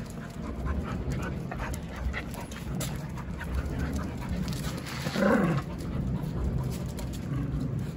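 Jindo dogs and a puppy playing and panting, with scattered light ticks and one short whine falling in pitch about five seconds in.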